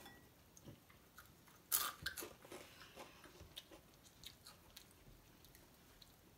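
A child crunching and chewing a mix of spicy snack chips (Takis, Flaming Hot Cheetos and Funyuns). One sharp crunch comes a little under two seconds in, followed by a quick run of smaller crunches and then scattered faint ones.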